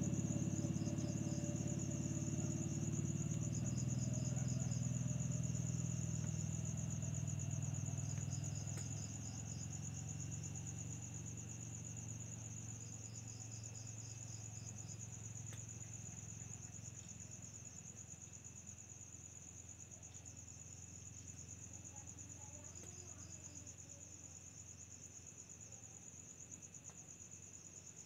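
Insects trilling: one high, rapidly pulsing trill runs on without a break, while another insect adds short runs of chirps every few seconds. A low rumble underneath fades away over the first ten seconds or so.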